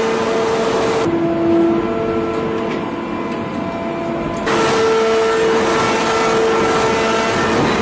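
Hydraulic forging machinery running: a steady mechanical drone with several held hum tones. Its character shifts abruptly about a second in and again midway. No hammer blows stand out.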